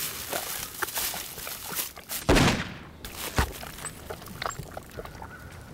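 A single loud rifle shot about two seconds in, trailing off in a falling whoosh, then a sharp knock about a second later. Small rustles and clicks come before and after.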